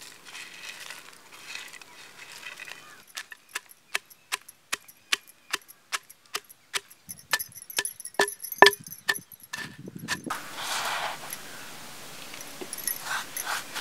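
Roasted whole spices tipped from a metal bowl into a stone mortar with a light rustle, then a wooden pestle pounding them in a steady run of sharp strikes, about two or three a second, for some seven seconds. After that come scraping and rustling as the ground spice is scooped out by hand.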